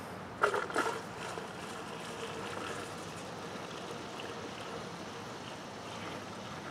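Gasoline pouring from a plastic gas can through a funnel into a garden tractor's fuel tank, a faint steady trickle. A couple of sharp knocks about half a second in.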